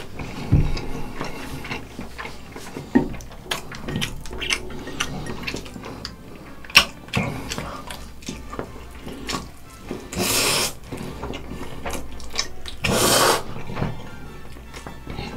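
Close-miked eating sounds of spicy instant noodles: many short wet smacks and clicks of chewing, with two longer slurps, one about ten seconds in and one near thirteen seconds in.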